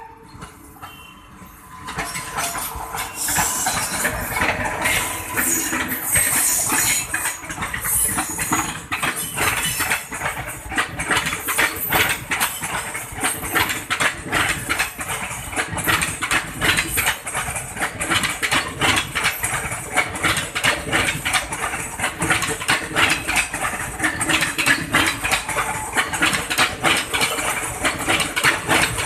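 An express train of passenger coaches running past at speed behind an electric locomotive: steel wheels clattering rapidly and rhythmically over rail joints over a steady rumble, starting about two seconds in.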